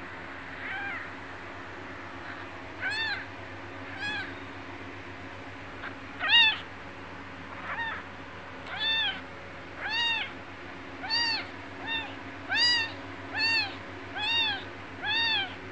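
Newborn kitten, about six days old, mewing in short high calls that each rise and fall in pitch. The mews come sparsely at first, then about once a second in the second half.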